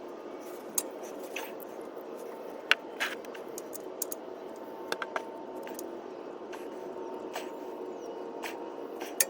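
Scattered light clicks and scrapes, about half a dozen, of a part being handled and threaded in by hand under the vehicle: a Fumoto oil drain valve going into the oil pan. Over a steady low hum.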